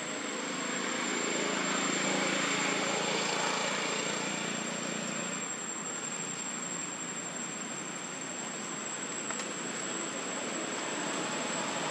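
Steady outdoor background noise with a constant thin high whine over it; a low hum swells over the first two seconds and fades out by about five seconds in.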